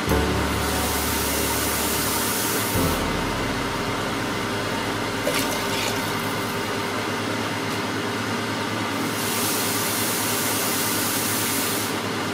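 Water poured in a steady stream into a pot of stew, splashing into the sauce, with a hissier stretch near the start and again near the end.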